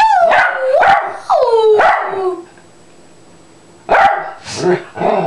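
Small shaggy dog giving two drawn-out, howl-like barks, each sliding down in pitch, in its playful 'singing'. After a pause, a shorter, rougher burst of vocalizing follows about four seconds in.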